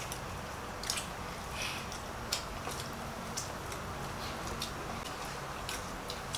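Scattered light clicks and taps of fingers and food on plates as several people eat by hand, over a steady low hum.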